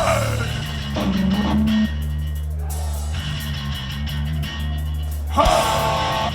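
Live hardcore punk band playing an instrumental passage: distorted electric guitars, bass guitar and drum kit, with a short shout just as it begins and a loud accent hit about five and a half seconds in.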